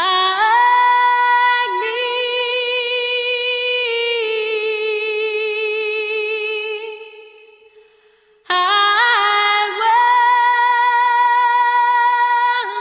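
Background song: a woman singing long held notes with vibrato. The first note fades out about seven seconds in, and a new held note starts about a second and a half later.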